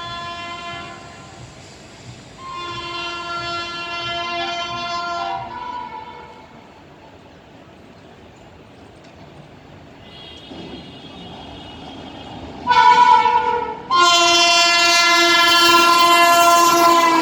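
WAP-5 electric locomotive's horn honking in a series of blasts as the train approaches, getting louder. There is a blast in the first second and a longer one from about two to five seconds. A fainter one comes around ten seconds, then a short loud blast and a long, very loud blast near the end.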